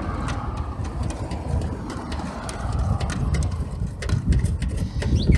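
Wind buffeting the microphone in a heavy, uneven low rumble, with scattered small clicks and taps from parts being handled.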